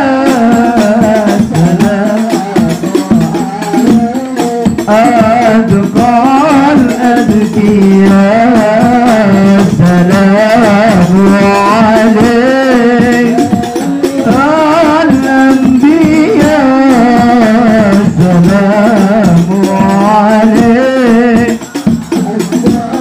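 Male voices singing an Islamic sholawat devotional song, accompanied by hand-struck rebana frame drums playing a steady beat.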